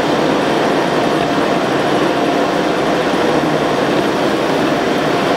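Steady road and tyre noise heard inside a car's cabin while driving at motorway speed.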